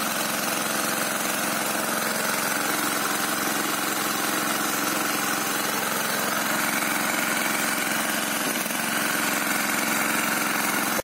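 A small petrol-engine water pump set running steadily, pumping water up from a borewell, with the water gushing out of its outlet onto the ground.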